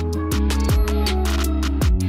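Electronic background music with a steady beat and a deep bass whose notes slide downward.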